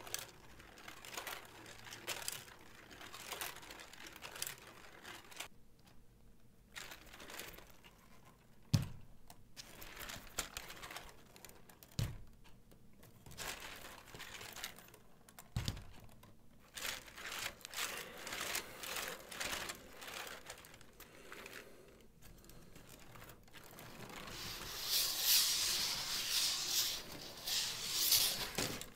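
Plastic LEGO plates of a flexible waving-square sculpture clicking and rattling against one another as the stack is bent and twisted by hand, with three sharper knocks. The clatter grows denser and louder near the end.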